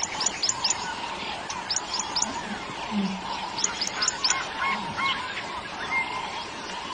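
Birds calling: groups of three or four quick, high whistles falling in pitch, repeated several times, mixed with lower chirping notes over a steady background hum.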